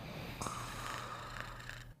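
Snoring during sleep: one long, rasping snore breath starting about half a second in and fading out near the end.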